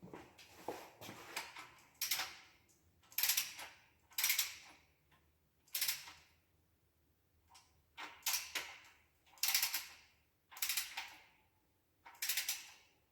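Ratcheting torque wrench worked in short strokes, tightening the engine's bearing cap bolts toward 95 foot-pounds; about eight rasping ratchet strokes roughly a second apart, with a short pause in the middle.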